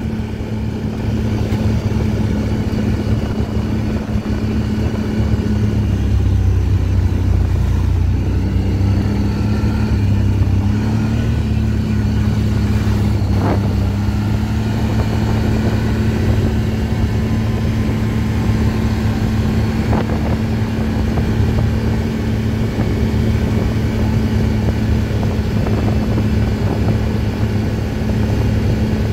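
ATV engine running at a steady pitch, with a brief slight drop in pitch a quarter of the way through. Two short knocks sound over it, about halfway through and again about two-thirds through.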